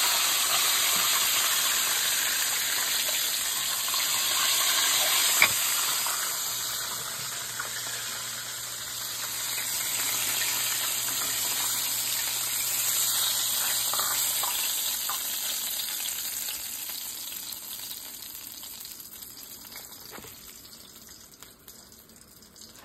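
Battered sheepshead fillets frying in a pan of hot oil: a steady, loud sizzle, with one sharp click about five seconds in. The sizzle fades over the last several seconds.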